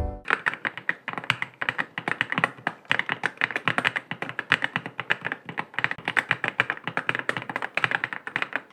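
Fast, continuous typing on a YUNZII X98 gasket-mount mechanical keyboard with pre-lubed Snow linear switches: a rapid, uneven stream of key clacks.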